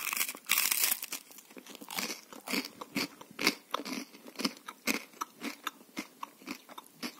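A bite into a pan-toasted bun with a crisp fried crust and melted cheese on top, then crunchy chewing, crunches coming about twice a second.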